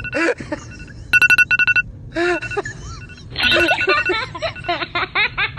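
Phone alarm ringtone going off in quick bursts of about five high beeps, repeating several times, with a voice heard between and over the beeps.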